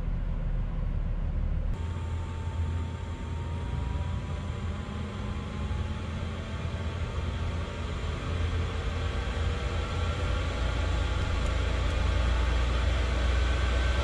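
Chinese 5 kW diesel air heater starting up with its glow plug on: the fan runs with a steady low hum and rushing air, and a faint whine slowly rises in pitch as the fan speeds up.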